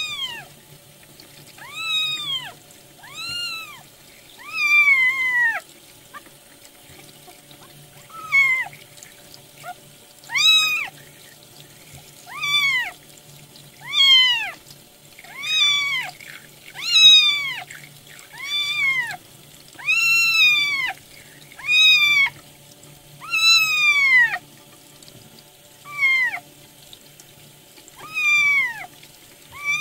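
Newborn kitten mewing over and over, thin high cries about every second and a half, each rising then falling in pitch, while tap water runs over it in a sink.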